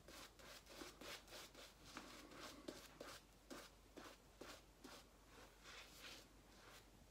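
Faint, rhythmic swishing of a shaving brush scrubbed over a lathered, stubbly face, about three strokes a second. The lather is thin, too poor to shave with.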